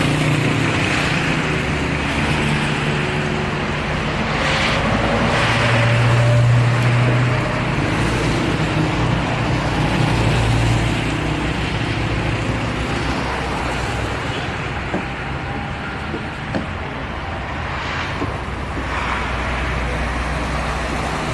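Road traffic: car engines running with a steady low hum and continuous road noise, with a few brief swells as vehicles go by.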